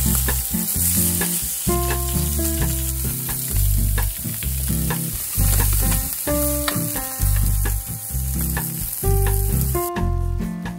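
Sea bass fillets sizzling in hot oil in a frying pan, with steady spitting hiss, over background music with a melody and a pulsing bass line. The sizzle cuts off suddenly near the end while the music carries on.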